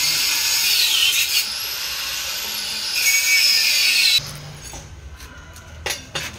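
Handheld angle grinder cutting, its whine dipping under load. It eases off about a second and a half in, bites again about three seconds in and stops abruptly a little after four seconds. A few sharp knocks come near the end.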